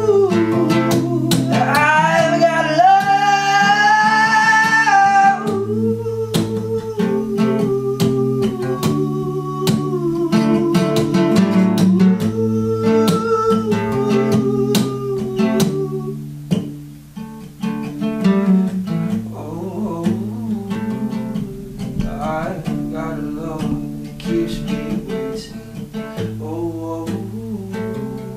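Solo acoustic guitar strummed in steady chords while a man sings, holding a long rising note in the first few seconds. The playing grows quieter in the second half.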